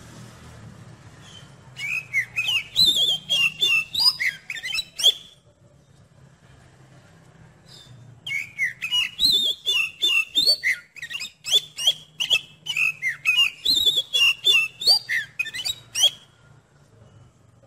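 Oriental magpie-robin (kacer) singing: rapid, varied whistled phrases mixed with sharp clicks, in a short bout about two seconds in and a longer one from about eight seconds in to near the end.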